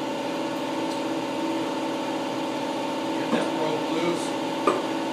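A few short metal clunks and clicks about three to four and a half seconds in as a Ford 289 V8 cylinder head is rocked loose and lifted off the block. Under them a steady mechanical hum runs throughout.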